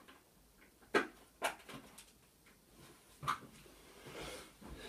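A few sharp clicks and knocks of plastic parts being handled and fitted at the back of a TV stand, the two loudest about a second in, then a brief rustle near the end.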